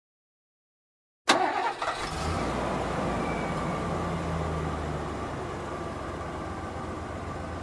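About a second of silence, then a pickup truck engine comes in suddenly with a sharp click and runs, settling into a steady idle.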